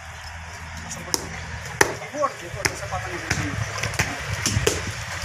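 Meat being struck on a hard block in a steady rhythm of sharp knocks, about three every two seconds, starting about a second in.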